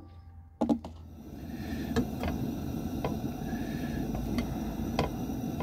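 Steady hiss of a propane stove burner under a frying pan, with light clicks and scrapes of a knife pushing butter around the pan. The hiss comes in and builds about a second in, after a single sharp click.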